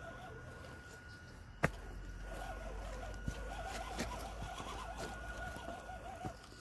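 Electric RC scale crawler's motor and geared drivetrain whining, wavering up and down in pitch as it crawls over grass and stones. A faint steady high tone runs underneath, and there are a few sharp clicks, the loudest about a second and a half in.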